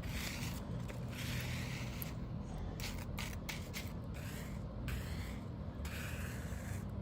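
A hand spreader scraping loose cold-patch asphalt mix across the pavement in repeated strokes, about one a second, as the patch is levelled out to the edges.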